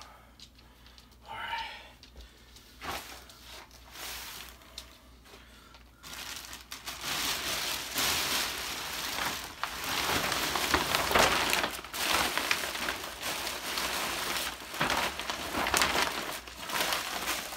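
Plastic wrapping crinkling and rustling as it is handled and crumpled: a few soft rustles at first, then loud, continuous crinkling from about six seconds in.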